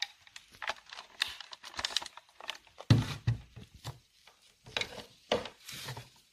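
Handling noise of a network cable's plastic plug being pushed into a router's LAN port: a run of irregular clicks, rustles and knocks, the loudest a dull knock about three seconds in.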